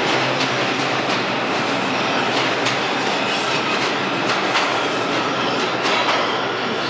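New York City Subway R142 train pulling out of the station, its cars running past over the rail joints with a steady run of clicks and a faint wheel squeal.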